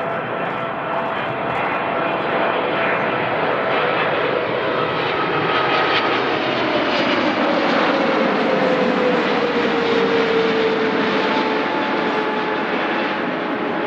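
Jet airliner's engines, a loud roar that builds through the clip, with a whine that falls in pitch about halfway in as the aircraft passes close by.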